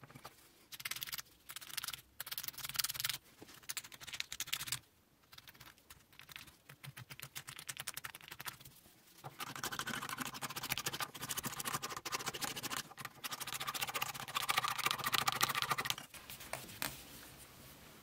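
A single-edge razor blade scraping old red finish and grime off a horn-shaped wooden plane handle. There are short bursts of strokes in the first few seconds, then a long run of fast, rapid scraping strokes from about halfway in that stops shortly before the end.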